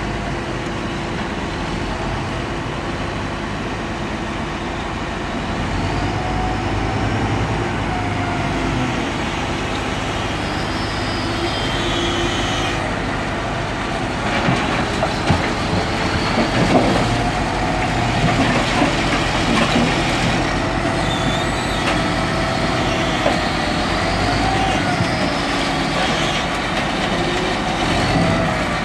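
Heavy diesel engine of a wheel loader running steadily, with its hydraulics whining as it moves a scrap pickup truck. From about halfway through, loud metal clanks and scrapes sound as the truck body is set down onto crushed car bodies on the crusher bed.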